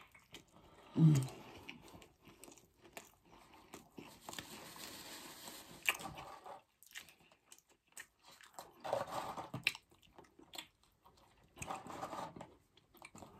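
Close-up biting into and chewing a burger, with wet mouth sounds, and a brief louder low sound about a second in.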